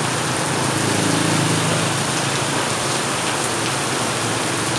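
Heavy rain pouring steadily onto a wet street and pavement, an even, unbroken hiss of downpour.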